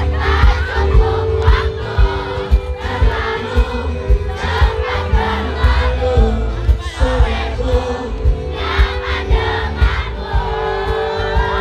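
Band music with a large crowd singing along in unison over a held chord and a beat.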